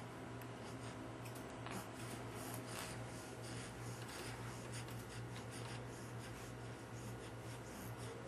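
Soft rustling and scratching of plush toys and bedding being handled, with many short scratchy scrapes and small clicks, over a steady low hum.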